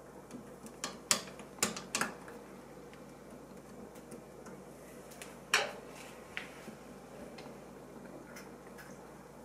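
Small flathead screwdriver clicking against a kitchen faucet's valve as it slowly pries the valve up out of its housing. Several sharp clicks come in the first two seconds, another loud one about five and a half seconds in, and a few faint ones after.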